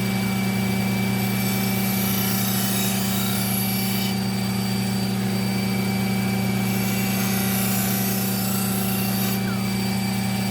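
Slow-speed sharpening machines running with a steady motor hum and whine, while a knife edge is drawn across the spinning polishing surface twice, each pass adding a few seconds of high hiss.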